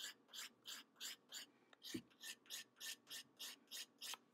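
Metal spoon edge scraping a stick of sidewalk chalk in faint, rapid rasping strokes, about three a second, shaving chalk dust onto water. A single soft low knock comes about two seconds in.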